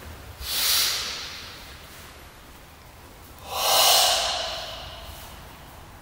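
Two forceful, hissing breaths in the Goju-ryu breathing method used in Sanchin and Tensho kata. The first comes about half a second in; the second, about three and a half seconds in, is louder and longer.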